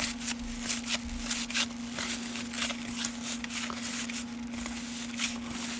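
A stack of 1989 Fleer cardboard baseball cards being thumbed through by hand, cards sliding and flicking against each other in quick, irregular rustles and clicks. A steady low hum runs underneath.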